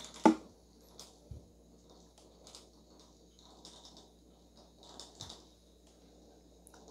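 Battery-powered vibrating robot ladybug toy buzzing faintly as it skitters on its bristle legs across a wooden floor, with a sharp tap just after the start and a few light clicks as a cat bats at it.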